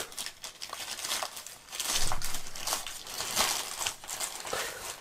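Plastic postal mailing bag crinkling and rustling as it is pulled open by hand and a Blu-ray case is slid out of it. It is loudest from about two seconds in.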